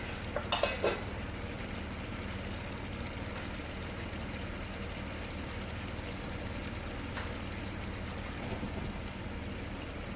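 Pork asado sauce simmering in a frying pan, a steady bubbling hiss, with a few quick clatters about half a second in.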